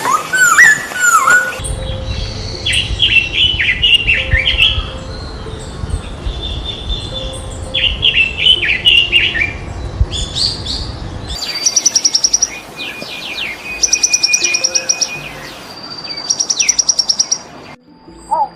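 Small songbirds chirping in quick repeated series, over a low rumble for the first half. In the second half come three rapid high trills, about a second each.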